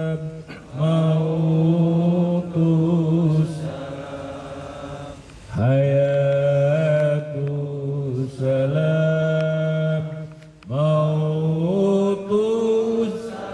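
A man chanting a devotional Islamic chant into a microphone, in four long, drawn-out melodic phrases with short breaks between them.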